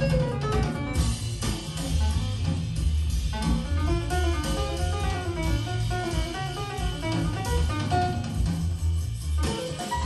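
Jazz music with guitar and drums played back through Monitor Audio Silver 100 6G bookshelf speakers, heard in the room, with a strong bass line under the melody.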